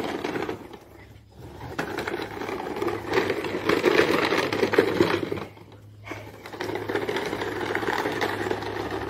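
A toy truck rattling and scraping as it is dragged on a string over dirt ground, with two short lulls, about a second in and around six seconds.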